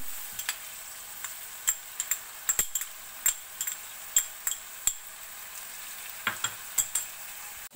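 Chicken pieces frying in oil in a metal pot with ginger-garlic paste, a steady sizzle. A metal spoon clinks against the pot and containers a dozen or so times at irregular intervals as ingredients are spooned in and stirred.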